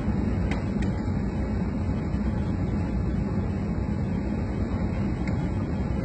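Steady low rumble and wind noise aboard a tanker ship pitching through rough seas, with a few faint clicks about half a second in and again near the end.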